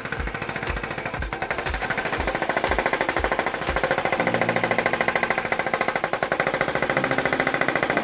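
Excavator-mounted TMG hydraulic breaker on a Kubota 080-4S, its chisel hammering very hard basalt rock in a rapid, steady train of blows. The hard basalt is wearing down the chisel tip.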